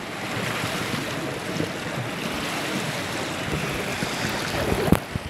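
Pool water splashing and churning in an indoor swimming-pool hall, just after a jump from the diving board, with one short sharp slap near the end.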